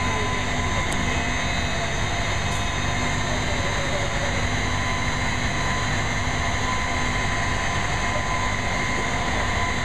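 Steady drone of a crane's engine running under load, with a constant whine held at one pitch throughout.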